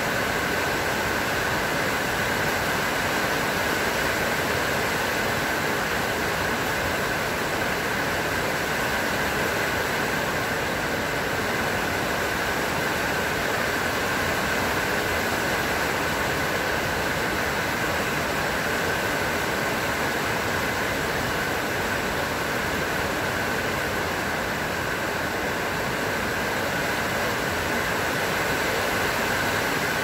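Steady rain falling on trees and garden foliage, an even, unbroken hiss.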